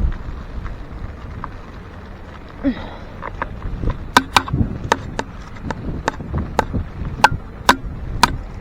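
A run of sharp, hard clacks, roughly two a second, starting about halfway through, over a low rumble of wind on the microphone.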